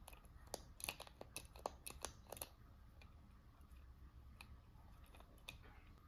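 Light clicks and snips of small objects being handled: a quick run of about a dozen in the first two and a half seconds, then a few single clicks.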